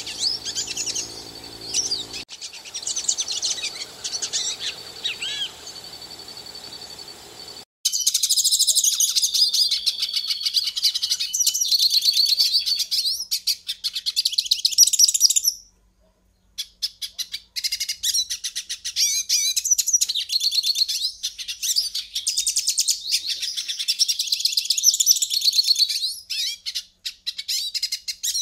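Pintassilgo finch singing a long, fast, high twittering song of chirps and trills. A low steady hum lies under the song for the first few seconds, then the recording changes abruptly to a cleaner one; the song breaks off for a moment about halfway through and resumes.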